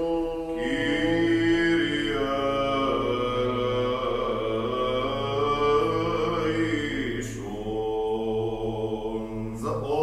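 Byzantine liturgical chant: a man's voice sings a slow, melismatic line of long held notes that glide gently in pitch. A lower voice holds a steady drone beneath it. The line breaks off briefly about seven seconds in, then resumes.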